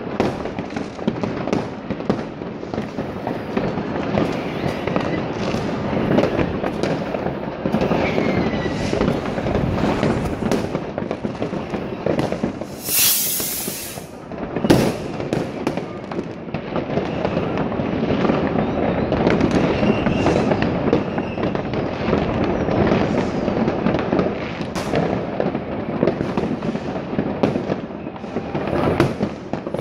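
Many fireworks and firecrackers going off at once, near and far, in a continuous crackling and banging with a few faint whistles. A loud hiss rises about thirteen seconds in, followed by a sharp bang.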